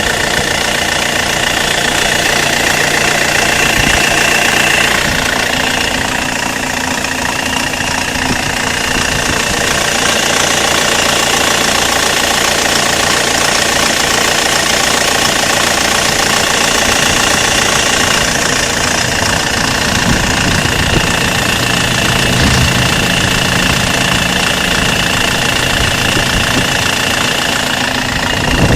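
Toyota Avensis 1CD-FTV 2.0-litre four-cylinder common-rail diesel engine idling steadily from cold, with a rumble that the owner hears only when it is cold and not at operating temperature.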